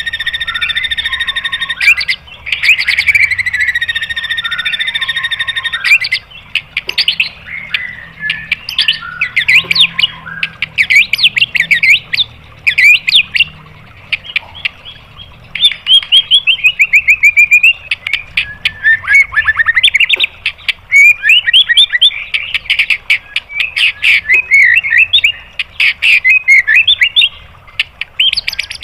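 White-rumped shama (murai batu) song: two long, steady high notes over the first six seconds, then fast runs of varied chirps, trills and sliding whistles.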